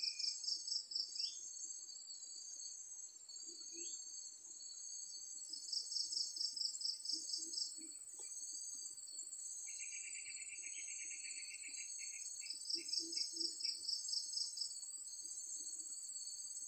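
Insects shrilling in a steady high chorus, with a louder pulsed trill of about four or five beats a second coming in three times, and a lower-pitched trill near the middle.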